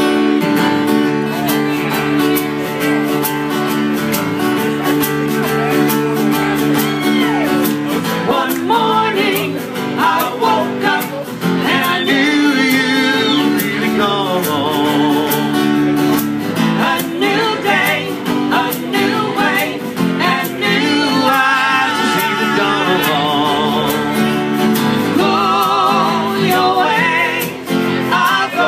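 Live acoustic band: two acoustic guitars strumming chords, with a man and a woman singing that comes in about eight seconds in.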